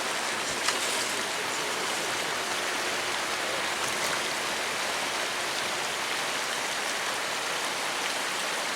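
Steady rush of flowing stream water, with one small sharp click a little under a second in.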